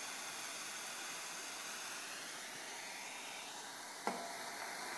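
Propane blow torch hissing steadily, with one sharp knock about four seconds in.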